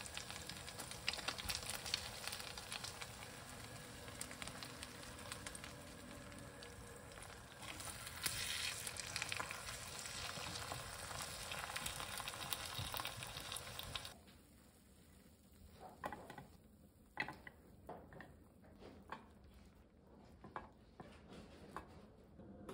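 Food sizzling in a frying pan, with the clicks of a utensil. About two-thirds of the way through, the sizzling stops, and only scattered clicks and knocks of kitchen utensils are left.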